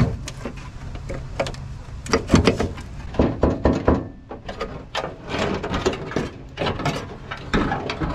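Sheet-steel wheel-well panel of a Nissan Gloria being pried and pulled apart from the body at its drilled-out spot welds: a series of irregular metal knocks, clunks and scrapes as the panel flexes and works free.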